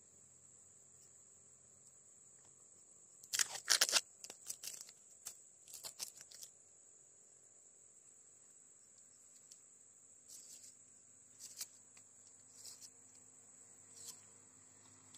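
Insects droning steadily at a high pitch, with a loud burst of rustling and handling noise close to the microphone about three to four seconds in, then a few softer rustles.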